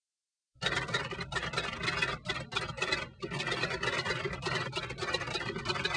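Rapid keyboard typing clicks, a typing sound effect for text being typed out on screen. It starts about half a second in and goes on in a quick, uneven patter over a low hum.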